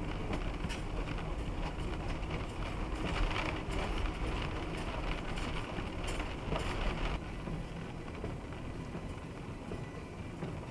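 Truck driving slowly on a slushy, icy road, heard from inside the cab: a steady low rumble of engine and tyres with scattered sharp ticks. About seven seconds in the sound drops quieter as the truck creeps along more slowly.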